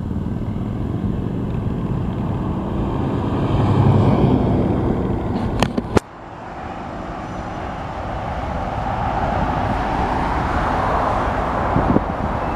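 Freight train of garbage container cars rolling past with a steady rumble, mixed with road traffic noise. Two sharp clicks come a little before halfway, then the sound drops off suddenly and builds back up over the following seconds.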